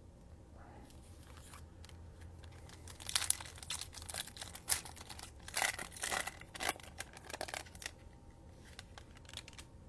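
Wrapper of a Panini Prizm trading-card pack being torn open by hand, crackling and ripping in a run of sharp bursts from about three seconds in, then quieter again near the end.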